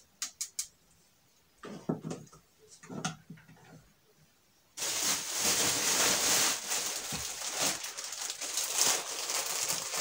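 A few light knocks and handling sounds, then from about five seconds in a loud, continuous crackling rustle of plastic packaging as a plastic-wrapped pack of toilet tissue is lifted and handled.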